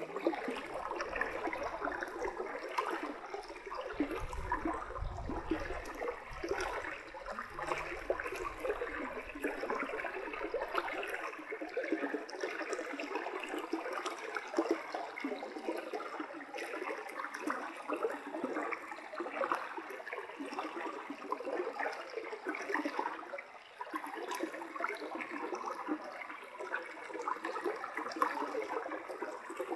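Shallow forest stream flowing past a concrete ford, a steady rush of water, with a low rumble underneath for the first ten seconds or so.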